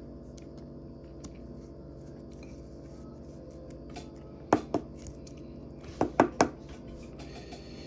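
Trading cards being handled at a table: two sharp taps about halfway through and three more quick ones a second and a half later, over a steady low hum.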